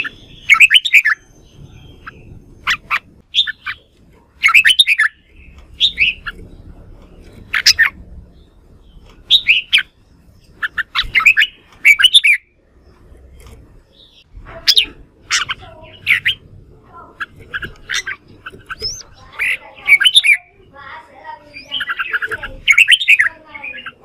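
Red-whiskered bulbul singing in short, loud, chattering phrases, one every second or two, coming thicker and more overlapping in the last few seconds.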